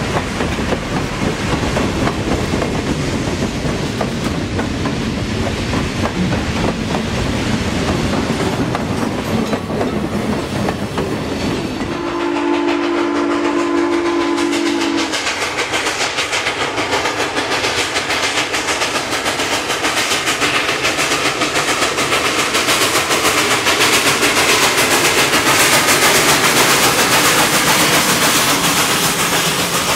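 Freight cars rolling past with a clickety-clack of wheels on rail joints. About twelve seconds in, the steam whistle of Western Maryland 734, a 2-8-0 steam locomotive, blows steadily for about three seconds. Then the locomotive and its train grow louder as they come by, loudest near the end.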